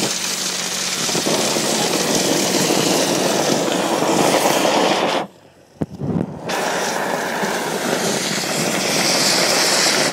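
Compressed air blasting into a burning fire pot: a loud, steady rush of air and fanned flames. The rush cuts off about five seconds in for about a second, then starts again.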